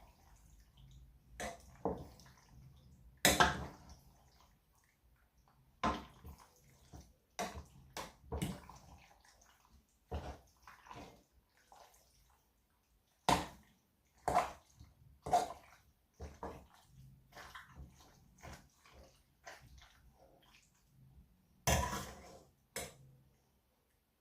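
Kitchen clatter: irregular sharp knocks and clinks of a utensil against a pan and dishes, about twenty over the stretch, with some wet splashing sounds, as a pasta dish is finished for serving.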